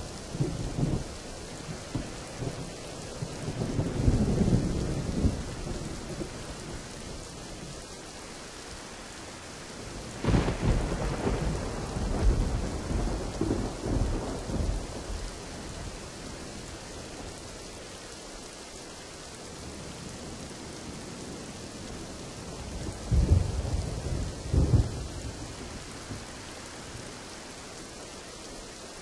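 Steady rain with thunder: a low rumble a few seconds in, a sharp crack about ten seconds in that rolls on for several seconds, and another spell of rumbling about three-quarters of the way through.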